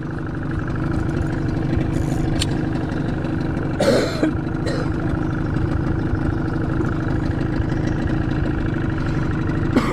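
Boat motor running steadily at idle, a constant low hum, with a few short knocks and a brief louder sound about four seconds in.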